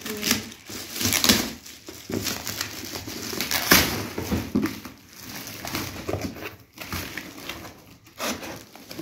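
Shiny metallic foil gift wrap crinkling and crumpling as it is pulled off a box in irregular crackly rustles. Near the end, cardboard box flaps and snack packets rustle as the box is opened.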